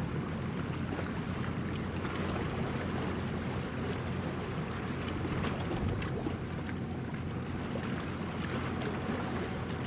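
Steady low drone of the helicopter destroyer JS Kaga's gas-turbine propulsion as the ship passes, with a faint hum and no change in pitch.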